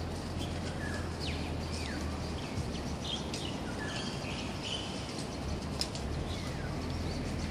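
Birds chirping in short, quick calls scattered throughout, over a steady low hum.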